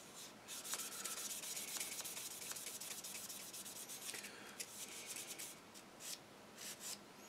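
A sponge sander rubbed along a styrene plastic model gun barrel to take off the mould seam line: a faint, scratchy rasp. It is steady at first and breaks into short separate strokes over the last few seconds.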